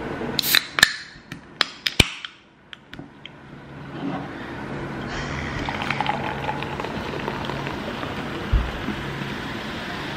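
A soda can's tab is cracked open with a short hiss and a few sharp clicks in the first two seconds. From about four seconds in, the carbonated drink pours and fizzes steadily into a glass, with one low thump late on.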